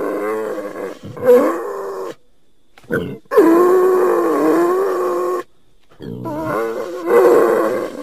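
Wild boar calling: a run of about five drawn-out, pitched calls that waver up and down, the longest lasting about two seconds, with short pauses between them.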